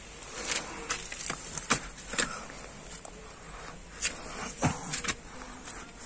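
Footsteps scuffing on sandy, gritty ground, an irregular string of short knocks, over a steady high-pitched drone of forest insects.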